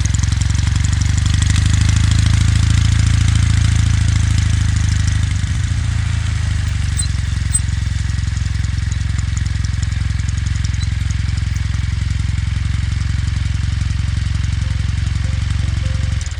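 Kawasaki W800's air-cooled parallel-twin engine and exhaust running as the motorcycle is ridden, a steady beat that eases to a slightly quieter level about five seconds in.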